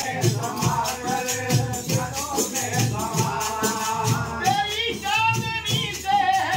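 Sufi devotional kalaam sung by men's voices over hand-beaten frame drums (daf) played in a steady, fast rhythm of about four strokes a second, with a rattling jingle on each stroke.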